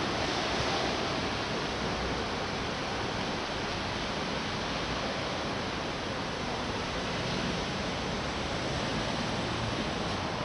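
Steady street ambience: an even, continuous hiss of outdoor noise with no distinct events.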